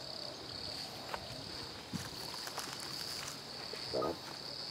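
Insects droning steadily at one high pitch, with a few faint clicks and a short faint call about four seconds in.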